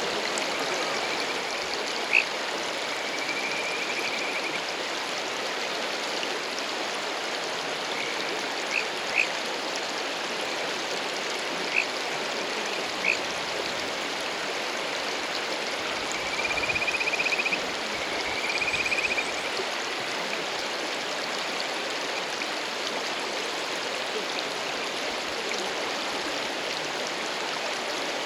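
Male kajika frogs (Buergeria buergeri) giving their courtship call over a steadily rushing mountain stream: scattered short high chirps and several trilled, warbling notes. The two loudest trills come a little past the middle.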